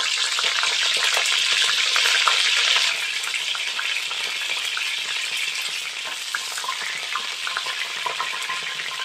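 Fresh curry leaves sizzling and crackling in hot oil in a kadai, a dense spitting hiss full of tiny pops as their moisture hits the oil. It eases a little about three seconds in.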